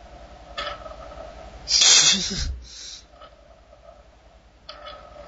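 A loud breathy exhale into a close microphone about two seconds in, followed shortly by a softer breath, over a steady electrical hum.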